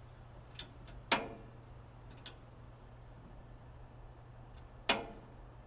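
Gas grill igniter clicking: a few sharp clicks, the loudest about a second in and near the end. The burner does not catch, so more gas is needed before it will light.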